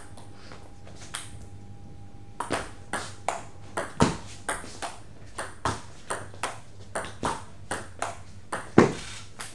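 Table tennis rally: the ball clicking back and forth off bats and table at about three hits a second, starting after a pause of about two seconds. Two hits stand out louder, about four seconds in and near the end.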